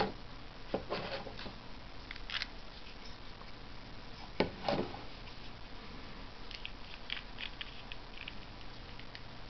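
Metal parts of a GoSystem GS2100 Trail Classic gas camping stove clicking and scraping as the burner is unscrewed and the stove is taken apart by hand. There are scattered short handling noises, the loudest about a second in and again about halfway, with lighter ticks after.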